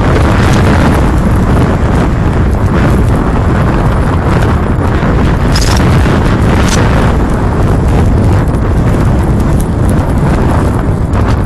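Strong wind howling and buffeting the microphone: a loud, steady low rumble with brief hissing gusts now and then.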